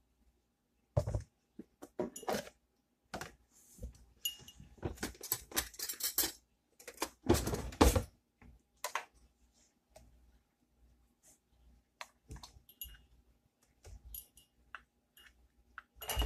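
Kitchen utensils clinking, knocking and scraping in an irregular clatter as shortening is scooped and measured out, loudest a little past the middle.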